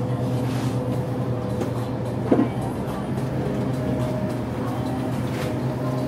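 Steady machine hum with a few held tones, and a single short knock about two seconds in.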